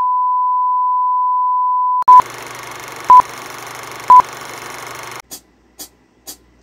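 Broadcast test tone (bars and tone), one steady high pitch that cuts off about two seconds in. Then a film countdown leader: a steady hiss with a low hum and three short beeps a second apart, after which the hiss stops and short clicks follow about twice a second.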